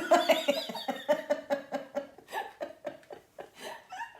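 A person laughing: a quick run of short laugh pulses that fades toward the end.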